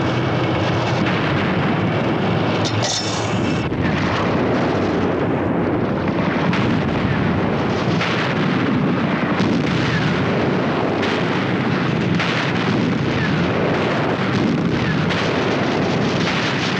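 Battle noise of artillery fire and explosions: a dense, continuous din with many sharp shots throughout, and a brighter burst about three seconds in.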